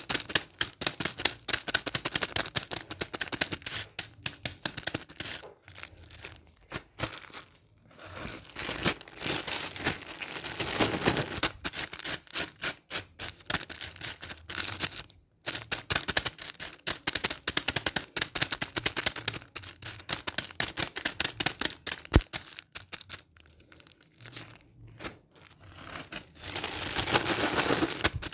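Dense, irregular crackling and clicking, coming in clumps with short breaks.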